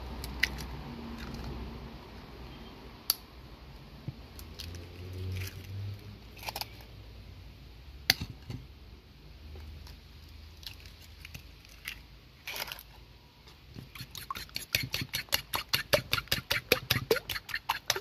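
An egg tapped and cracked against a ceramic bowl and its shell pulled apart, with scattered sharp taps and clicks. About fifteen seconds in comes a quick, even run of clicks, about seven a second, as the egg is beaten in the bowl.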